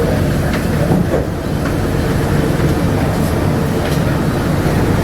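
Bombardier APM100 rubber-tyred people-mover train running along its guideway: a steady low rumble with a few faint clicks.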